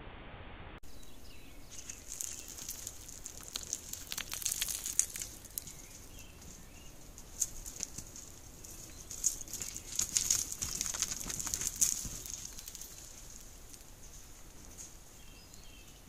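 Irregular rustling and sharp clicking as a long-tailed goral and a goat move over stones and dry leaf litter right beside the trail camera, heaviest through the middle, over a steady high hiss.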